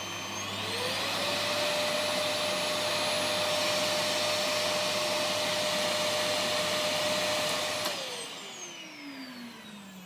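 Dawlance DWVC 6742 2300 W canister vacuum cleaner running: its motor whine rises about half a second in as the power level is turned up on the touch panel, holds steady, then falls away near the end as the machine is switched off and the motor winds down.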